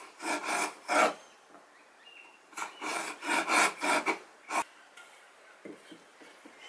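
Steel chisel scraping along the edge of a mahogany board in a series of short strokes: a couple in the first second, then a quicker run of about four in the middle. A single sharp tap follows, then only faint handling sounds.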